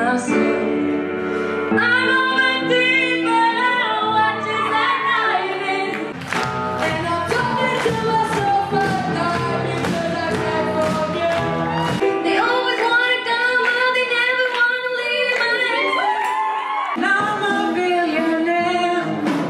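Live singing with band accompaniment, cut together from several different performances, so that the song changes abruptly four times.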